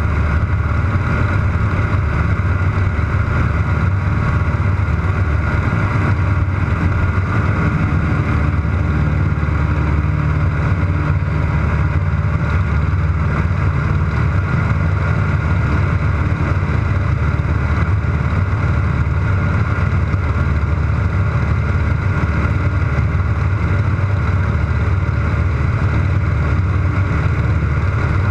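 Air Tractor AT-301 crop duster's Pratt & Whitney R-1340 nine-cylinder radial engine and propeller at takeoff power, heard from inside the cockpit. A steady, heavy drone holds through the takeoff roll, liftoff and climb.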